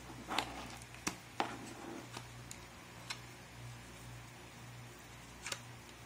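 A few light clicks and taps from a laptop hard drive and its mounting caddy being handled, about three in the first second and a half and a couple more near the end, over a steady low hum.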